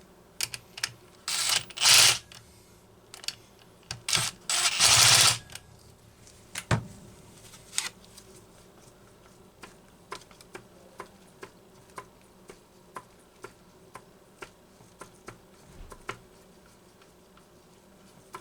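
Homelite Super XL chainsaw engine turned over by hand with the starter off, grinding through a rough spot near top dead centre. There are two short, loud bursts of grinding, then light clicks about twice a second. The rough spot is pronounced.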